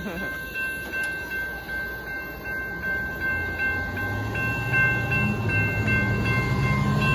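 Union Pacific freight train of hopper cars rolling past a grade crossing, with the crossing bell ringing steadily. A low rumble grows louder from about four seconds in.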